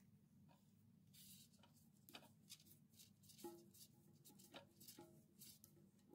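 Faint scattered clicks and rubbing of plastic parts and nitrile gloves as the flush handle and its nut are fitted inside a ceramic toilet tank, over a low steady room hum.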